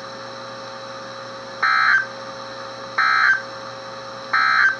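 Three short bursts of EAS data tones, each about a third of a second long and about 1.3 seconds apart, over a steady background hum. These are the SAME end-of-message code that closes the weather radio warning.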